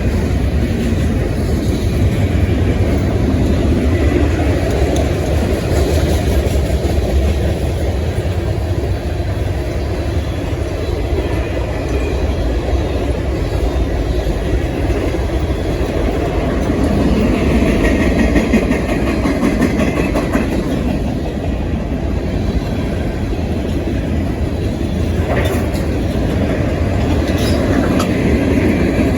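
A train passing close by, its cars rolling over the rails in a steady, loud rumble with some clickety-clack of the wheels.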